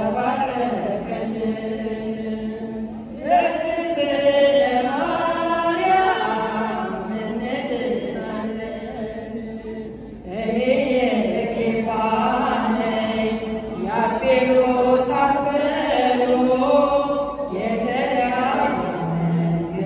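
Women's choir singing an Ethiopian Orthodox hymn to Mary without instruments, in sung phrases separated by brief pauses.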